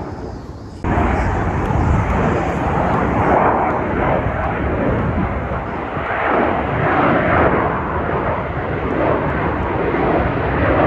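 Loud engine roar of aircraft flying over an air show crowd, a dense rushing noise that swells and fades over several seconds. It comes in abruptly about a second in.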